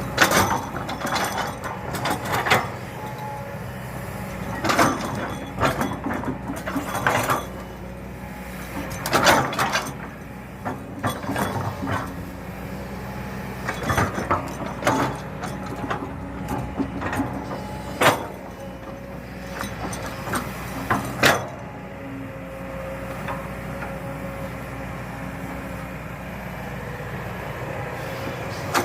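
Diesel engine of a hydraulic crawler excavator running steadily while digging, with repeated loud clanks and knocks through the first two-thirds, then a steadier engine hum near the end.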